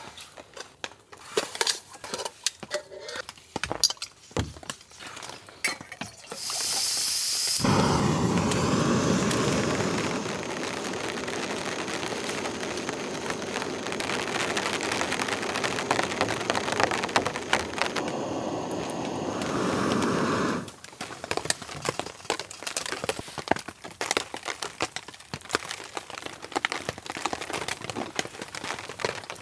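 Heavy rain: drops pattering on the tarp overhead as scattered sharp taps. From about a quarter of the way in until about two-thirds through, a louder, steady rush of rain takes over, then cuts off and the pattering returns.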